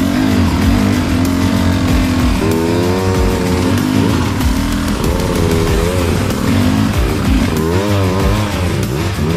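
Single-cylinder dirt bike engines revving up and down under load on a steep, rutted trail climb, the pitch rising and falling again and again as the throttle is worked.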